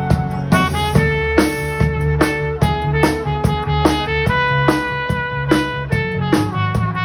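A small ensemble of violin, cello, flute, trumpet, keyboard and percussion playing an upbeat pop arrangement, with melody lines over a steady drum beat of about two hits a second.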